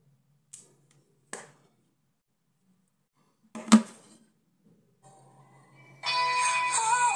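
Two faint clicks and then a louder knock, followed about six seconds in by a mobile phone ringtone starting up: a loud synthesized melody of several tones, an incoming call ringing on a retro handset.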